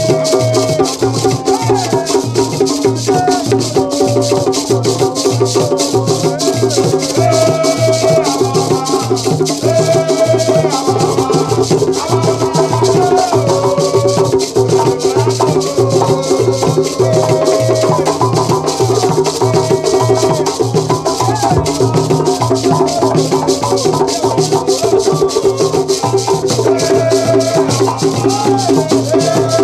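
Men singing together over hand-beaten wooden box drums and shaken beaded gourd rattles (shekere), with a steady, driving rhythm throughout.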